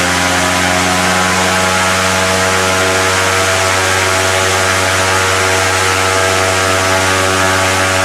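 Suzuki engine running flat out, steady, turning a 171 cm propeller that pulls about 180 kg of static thrust. The propeller loads the engine so that it cannot rev out fully, a sign that the blade pitch is too coarse.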